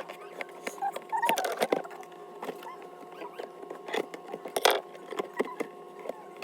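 Kit packaging and contents being handled: scattered clicks, taps and short plastic rustles, with a louder rustle about two-thirds of the way through. A faint steady hum runs underneath.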